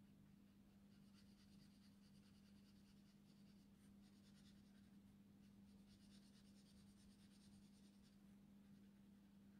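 Faint scratching of a Copic alcohol marker's nib stroking over paper, coming in several stretches with short pauses, over a low steady hum.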